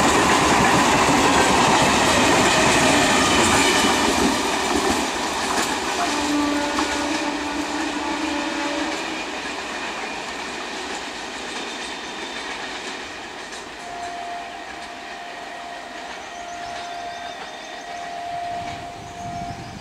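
Electric multiple unit local train running past close by, its wheels clattering on the rails, the noise dying away over the first five seconds. Then a train horn sounds briefly, and again in several blasts over the last six seconds as a second EMU approaches from afar.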